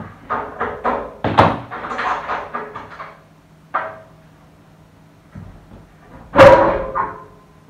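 Metal clicks and knocks of a spanner working on a radiator valve nut. About six and a half seconds in comes a loud, ringing clank as the panel radiator is lifted off its wall brackets.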